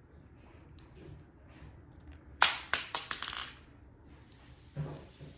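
Hard plastic clicks from the parts of a Roborock S8 robot vacuum being handled: one sharp click about two and a half seconds in, a quick run of smaller clicks right after, then a softer knock near the end.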